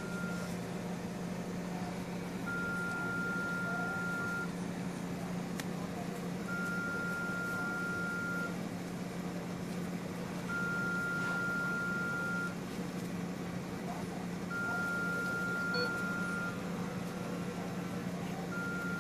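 Electronic alarm beeping: a single steady tone about two seconds long, repeating every four seconds, over a steady low hum.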